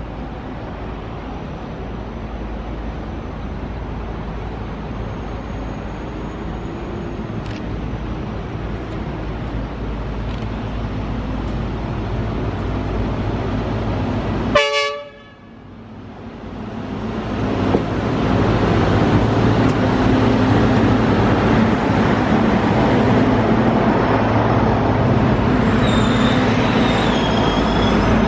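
Trackwork train of self-propelled track machines approaching: a steady diesel rumble slowly growing, a short horn toot about halfway, then loud engine and wheel noise as the machines pass close below, with wavering wheel squeal near the end.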